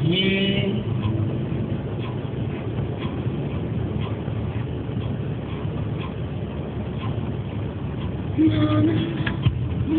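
Volkswagen car's steady engine and tyre-on-road noise heard from inside the cabin while driving at highway speed.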